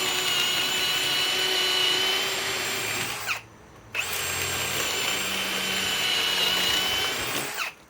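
Ryobi PBLHM101 cordless brushless hammer drill with a 3/8-inch bit, running with a steady motor whine. It stops about three seconds in, starts again about a second later, and runs until near the end.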